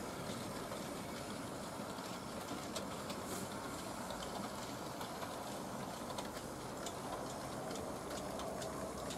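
Model steam locomotive running on a model railway: a steady motor whirr with the wheels clicking now and then over the rail joints.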